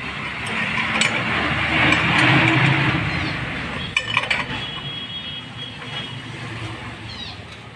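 A motor vehicle passes by, its noise rising and then fading over about three seconds. About four seconds in come a few sharp metal clinks of a ring spanner on the scooter's variator pulley nut as it is tightened.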